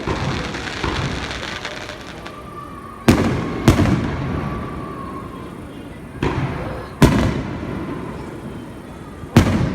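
Aerial fireworks bursting: about six sharp booms at irregular intervals, each trailing off in a long rumbling echo.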